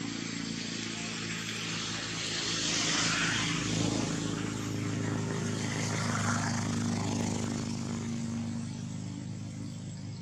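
A steady low drone like a running engine, with a hiss over it that swells about three seconds in and again about six seconds in.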